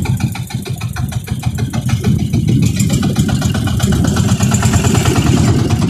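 Outrigger motorboat (bangka) engine running steadily under way, a rapid, even chug of firing beats. A hiss comes up over it about three seconds in.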